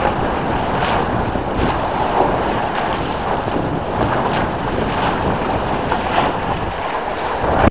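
Steady wind rushing over the microphone, mixed with water washing along the hull of a small sailing yacht under sail, with brief swishes now and then.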